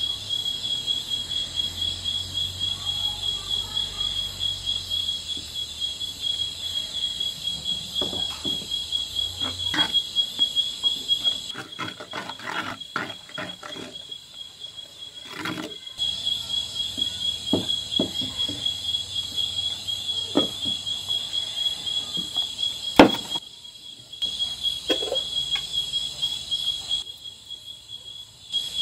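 Steady high-pitched insect chirring with a fast pulsing texture, over scattered clicks and scrapes of a metal spoon against clay pots as batter is stirred and flour is mixed. One sharp knock about three-quarters of the way through is the loudest sound.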